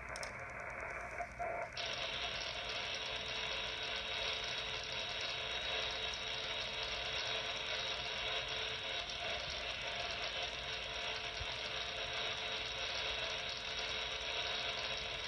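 POCSAG pager data on 26.750 MHz, FM-demodulated by a KiwiSDR web receiver, running steadily as a continuous digital data signal. About two seconds in it turns brighter as the receiver's audio passband is widened.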